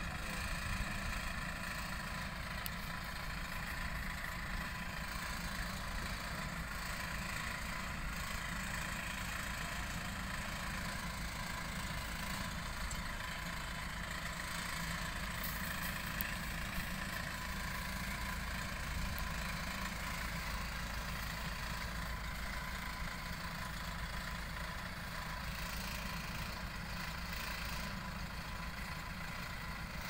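Rice combine harvester engines running steadily at idle or low speed, an even mechanical drone that does not change.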